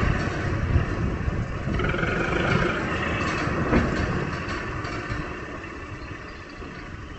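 Kubota M6040SU tractor's diesel engine running as its front blade pushes loose sandy soil, with two short knocks about one second and four seconds in. The engine sound grows quieter in the second half.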